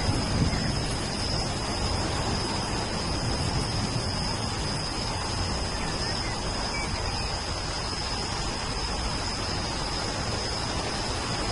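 Steady rain falling, an even continuous hiss, with a thin steady high-pitched tone running above it.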